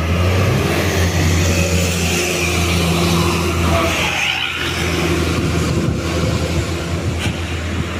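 A tour bus's diesel engine running hard as it passes close, a steady deep drone with road noise over it.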